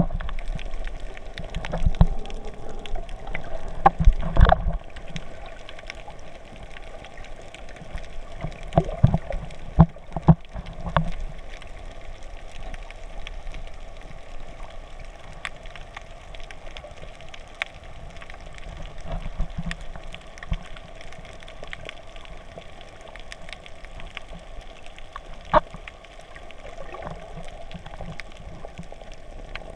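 Muffled underwater water sound picked up by a submerged camera: a steady wash with scattered sharp clicks and low thumps, the thumps heaviest in the first five seconds and again about nine to eleven seconds in.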